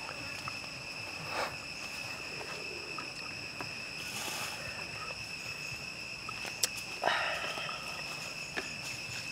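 Insects in the forest making a steady high-pitched drone, with a few brief soft noises and one sharp click over it.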